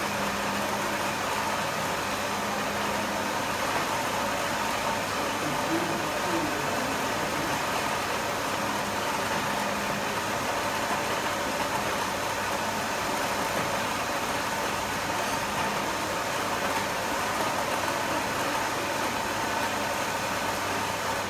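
Food processor motor running steadily, grinding a thick, sticky mixture of dates, oats and cashews into a paste; it cuts off abruptly at the very end.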